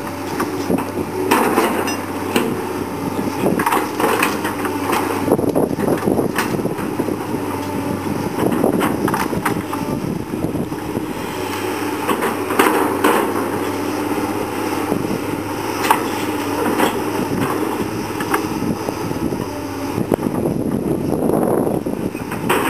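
Komatsu PC220 hydraulic excavator's diesel engine running steadily under load, with frequent sharp cracks and knocks as the bucket tears through brush and branches.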